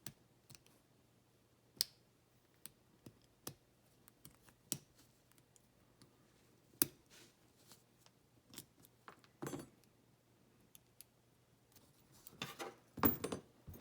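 Scattered small metal clicks and taps from tools working on a padlock being taken apart, followed by a denser, louder clatter of small metal parts near the end.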